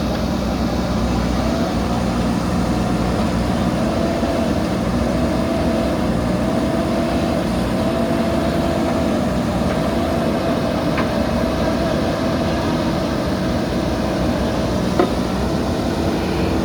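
JCB backhoe loader's diesel engine running steadily, with a faint wavering whine above the engine note and a single short knock near the end.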